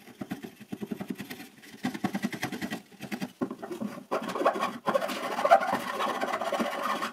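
Flat metal file rasping back and forth inside a through mortise in a pine board, in quick repeated strokes, cleaning out the hole so a metal bar will slide through. The rasp turns brighter and hissier about halfway.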